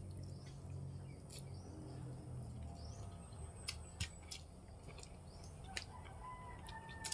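Soft eating sounds of rice noodles (bihon) being eaten by hand: scattered mouth clicks and smacks over a low steady hum, with a few faint chirps near the end.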